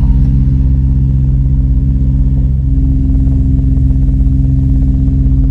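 Marine diesel engine running steadily at constant speed, heard loud from close by, with a slight step up in pitch about two and a half seconds in.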